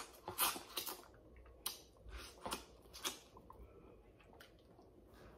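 Close-miked eating of a boiled shellfish meal: soft wet smacks and chewing, with scattered short clicks and cracks as shells are peeled by hand.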